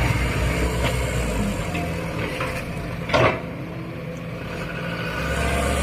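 Diesel engines of a loaded Mitsubishi Canter dump truck and a Sumitomo excavator running as the bogged truck is worked out of soft soil. A short loud knock comes about three seconds in. Near the end the deep engine note swells as the truck pulls out.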